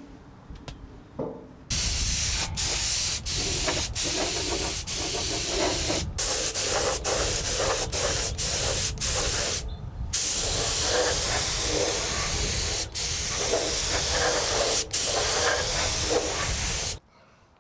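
Compressed-air paint spray gun spraying high-build primer: a loud, steady hiss that starts about two seconds in, breaks off briefly several times, and cuts off suddenly near the end.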